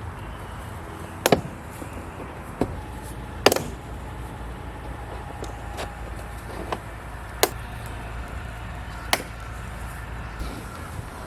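Door trim panel clips snapping loose one at a time as a BMW F10 door panel is pried off. About half a dozen sharp snaps are spread over the seconds, the loudest about a second and three and a half seconds in.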